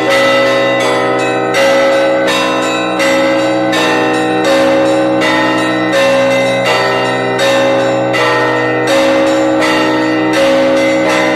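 Russian Orthodox church bells rung as a peal of several bells, calling to the All-Night Vigil. Higher bells are struck in a quick repeating pattern over the lasting hum of the larger bells, with a heavier stroke about every one and a half seconds.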